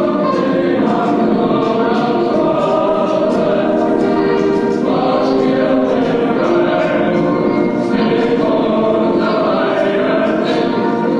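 Choral music: many voices singing slow, held chords at an even loudness.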